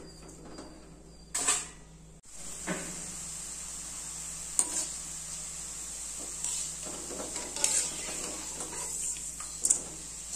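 Hot oil sizzling steadily as a batch of omapodi (gram-flour sev) deep-fries in an aluminium kadai, with a few brief clinks of a perforated steel ladle against the pan. The sizzling starts about two seconds in, after a quieter stretch with one short scrape.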